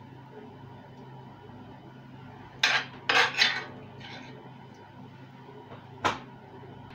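Metal spoon clanking and scraping against a cast iron skillet as ground meat in pizza sauce is scooped out: a quick run of sharp clinks a little before halfway, a lighter one after, and a single clink near the end, over a steady low hum.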